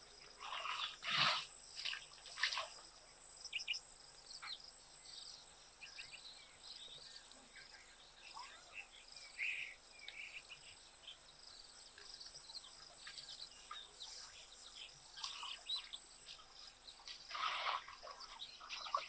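African elephant splashing water with its trunk in a shallow waterhole: a few splashes in the first seconds and more near the end. Between them are faint bird chirps over a steady high insect drone.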